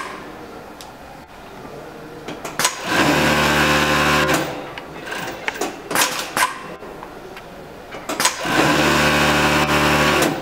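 Juki cylinder-bed industrial sewing machine stitching in two short runs of about a second and a half to two seconds, about three seconds in and again about eight and a half seconds in, each with a steady, even motor note. Sharp clicks come between the runs.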